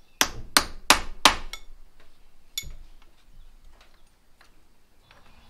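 Small hammer striking the steel lock washer at a motorcycle's front sprocket nut, bending the lock tab over against the nut. Four sharp metal strikes in quick succession, then a lighter tap or two about a second later.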